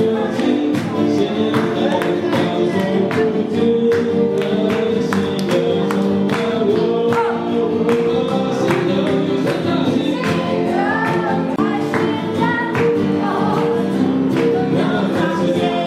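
Congregational worship song: a group singing together to a strummed acoustic guitar with a steady beat.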